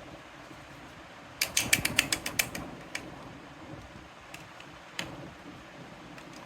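Small hard plastic pieces clicking against each other as they are handled: a quick run of about nine clicks, then three single clicks spaced out.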